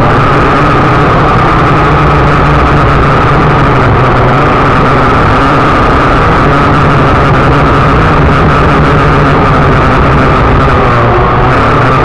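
Syma X8C quadcopter's motors and propellers running steadily in flight, heard close up and loud: a constant high whine over a dense lower hum.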